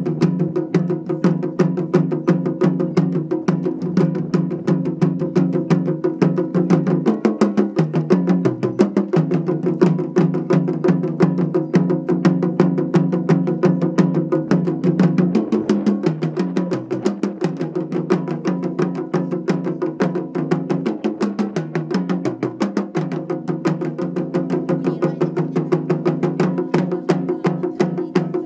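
Japanese taiko drum ensemble playing a fast, driving rhythm: rope-tensioned drums and barrel-shaped nagado drums struck with wooden bachi sticks, a dense run of strokes.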